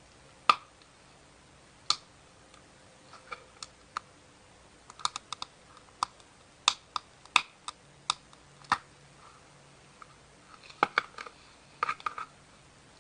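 Slime being squeezed and poked by hand, making irregular sharp clicks and pops, some in quick runs of three or four.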